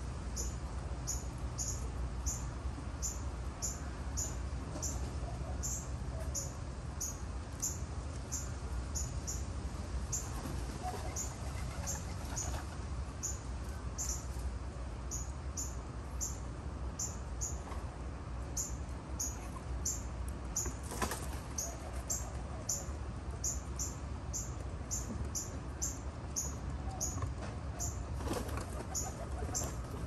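A dove's wings flapping as it flies up, heard as two short bursts of wingbeats past the middle and near the end. Throughout, a high chirp repeats about twice a second over a steady low rumble.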